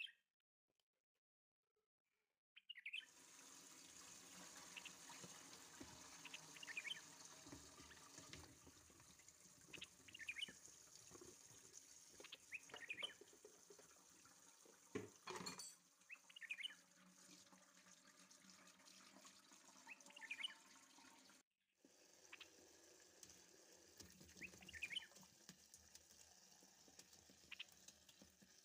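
After a near-silent first couple of seconds, a small bird chirps briefly every two to four seconds over a faint steady hiss of running tap water.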